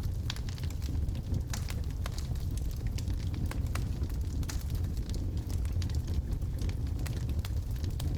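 Wood logs burning in a fireplace: a steady low rumble from the fire with scattered sharp crackles and pops.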